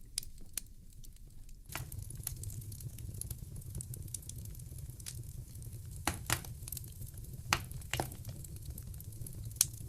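Wood fire crackling, with scattered sharp pops and snaps, over a low steady rumble that comes in just under two seconds in.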